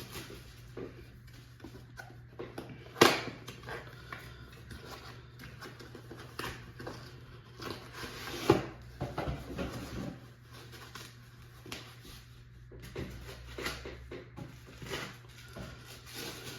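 Hands unpacking a boxed dinosaur figure: scattered rustles and clicks of packaging being handled, with two sharper knocks about 3 seconds and 8.5 seconds in, over a low steady hum.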